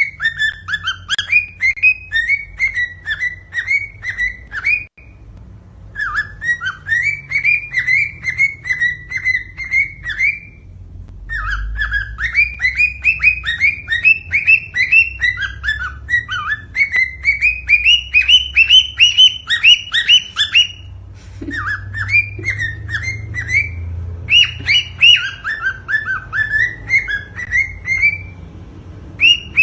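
Cockatiel singing a mating song: phrases of a few seconds of fast, repeated chirping whistles, separated by brief pauses, some phrases climbing in pitch toward their end.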